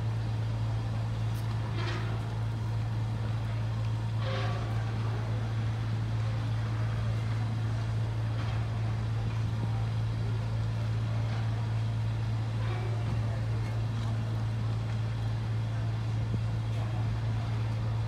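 Steady low engine drone that holds an even pitch throughout, with a few faint brief sounds over it.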